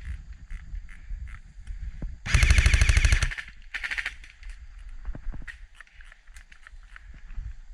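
Airsoft gun firing on full auto: a loud rapid burst lasting about a second, then a shorter, quieter burst just after.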